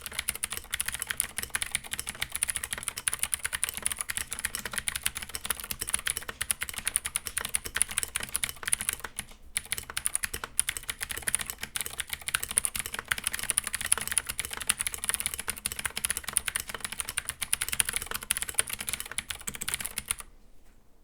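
Steady, fast typing on a Keychron K8 tenkeyless mechanical keyboard with its stock Gateron Blue clicky switches: a dense stream of sharp key clicks. There is a brief pause about nine seconds in, and the typing stops shortly before the end.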